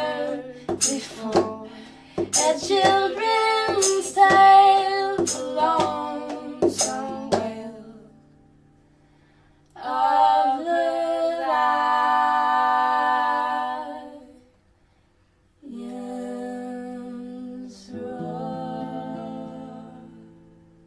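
Background music: a song with a woman singing over a rhythmic accompaniment, which gives way about ten seconds in to long held chords, with a short gap, before fading out near the end.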